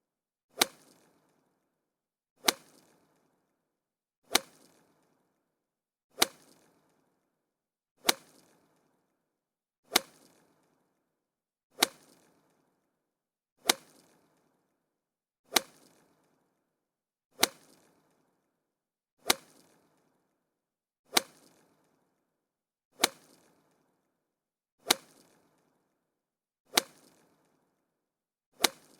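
Golf club striking a ball: a sharp crack with a brief ringing tail, repeated identically about every two seconds, sixteen times.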